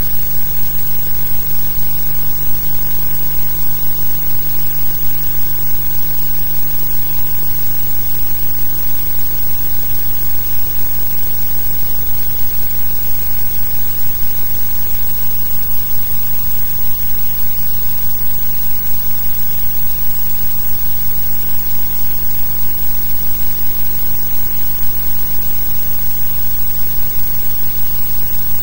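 Steady hiss with a low mains-type hum and nothing else. This is the noise floor of an archive film transfer whose story has no soundtrack.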